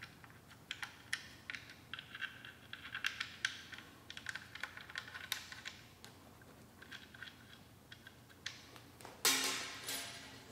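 Faint, irregular clicks and taps of small metal hardware being handled by hand as bolts and copper lock nuts are worked onto an electric motor's phase block. About nine seconds in comes a louder clatter of metal parts on a steel bench top, with a brief metallic ring.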